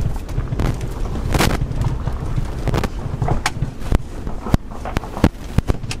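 Car engine and road noise, a steady low rumble, as the car reverses, with a series of sharp knocks and thumps through it.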